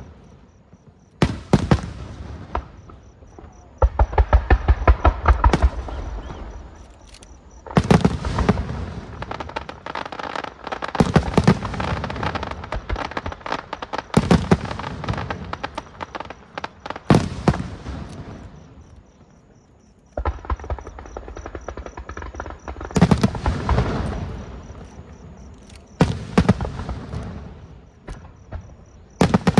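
Fireworks display: waves of rapid sharp bangs and crackling bursts every few seconds, with a lull of a few seconds past the middle before the volleys resume.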